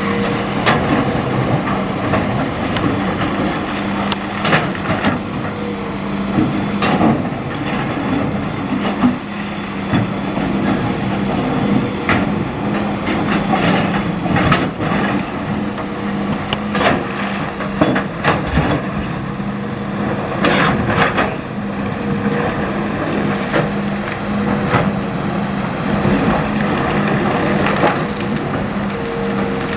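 Hitachi hydraulic excavator's diesel engine running steadily under load while stones clatter and knock repeatedly against the steel bucket and into a dump truck bed as it scoops and loads river gravel.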